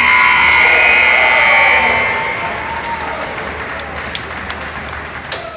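Ice rink's horn sounding loudly for about two seconds, the signal for the end of play, ringing on in the arena. Scattered clapping and clicks follow.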